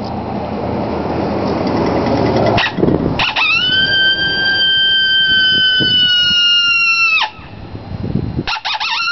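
Bison horn howler, a coyote howler call, blown into a long howl that rises quickly to a high note, holds it for about four seconds while sagging slightly, and breaks off sharply. A second howl starts rising near the end. Before the first howl there is a few seconds of rough, low rumbling noise.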